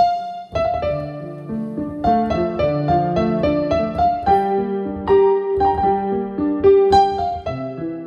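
Digital piano played by hand: a chord struck sharply at the start, then a slow melody over held chords.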